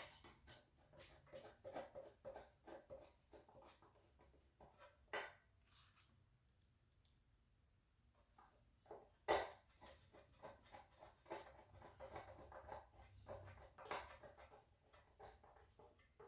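Faint, scattered clicks, taps and light scraping of metal panic-bar parts being handled and fitted together, with a sharper click about nine seconds in.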